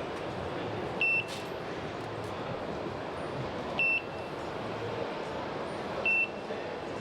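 Three short, high electronic beeps at one pitch, repeating about every two and a half seconds over steady background noise.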